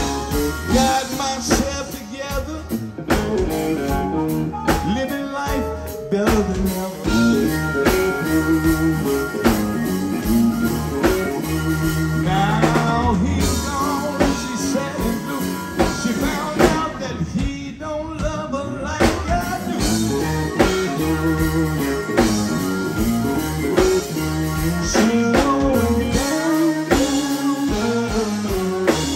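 Live blues band playing: electric guitar, electric bass and drum kit, with a man singing over them.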